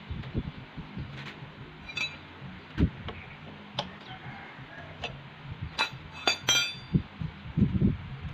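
Metal tools and parts clinking and tapping during hands-on repair work, a series of separate clicks, some ringing briefly, with a cluster of clinks about six seconds in and a few dull knocks.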